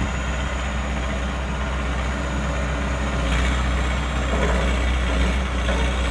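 Excavator diesel engine running steadily with a low drone, growing louder about three seconds in.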